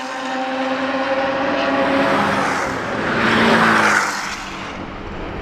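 Sports car engine and exhaust holding a steady note, then a car passing by, with a swell of noise that peaks about three and a half seconds in and then fades.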